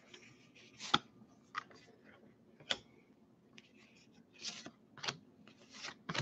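Topps Heritage baseball cards being shuffled by hand: card edges sliding and flicking against each other in a string of short, soft clicks and rustles, about seven in all, with the sharpest about a second in.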